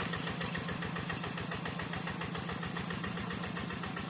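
Single-cylinder diesel engine of a two-wheel hand tractor running steadily, with an even, fast beat of firing strokes.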